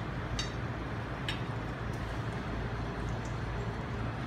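Steady low hum of commercial kitchen machinery, with two faint clicks of a metal spoon against the sauté pan in the first second and a half.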